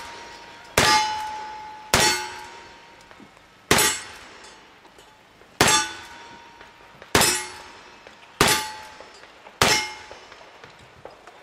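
Seven black-powder revolver shots, irregularly spaced about one to two seconds apart. Each is followed by a short metallic ring from a steel target being hit.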